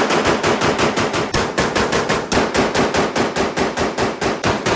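Rapid semi-automatic gunfire from a Springfield Armory M1A SOCOM 16 CQB rifle in 7.62 NATO: shots follow one another in a fast, even string without a pause.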